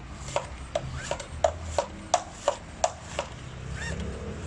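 Bicycle pump being worked in quick strokes to inflate a bicycle inner tube through its Presta valve, with a sharp click on each stroke, about three a second, pausing briefly near the end.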